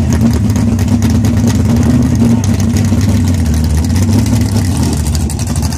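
Plymouth Barracuda drag car's V8 running loudly at a steady idle with an uneven, lumpy beat.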